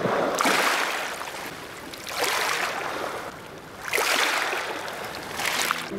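Water rushing in surges that swell and fade about every two seconds, like waves washing.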